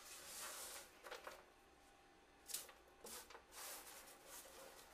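Faint scraping and rustling of a slotted spatula turning loose granola of nuts and coconut on a metal baking sheet, in several short strokes. The granola is still loose, not yet clumping, partway through baking.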